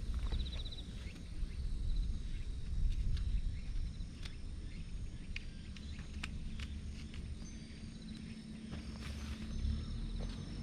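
Outdoor vegetable-garden ambience: a low steady rumble with scattered soft clicks and rustles of someone walking and crouching among the plants. A short insect trill sounds in the first half-second.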